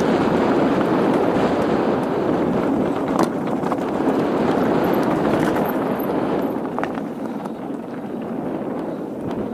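Mountain bike tyres rolling fast over a loose, rocky trail, a steady gritty rumble with wind on the microphone and a few sharp knocks from stones and the bike.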